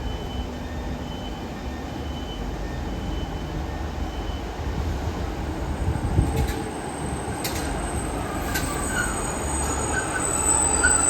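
Train moving through the station: a steady low rumble with three sharp clicks from about six seconds in, and high-pitched wheel squeal growing louder near the end.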